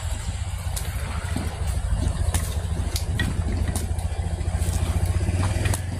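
Wooden ox cart drawn by two oxen rolling along a concrete lane: a low rumble of its wheels that grows louder as it draws near, with scattered sharp clacks of hooves and wood.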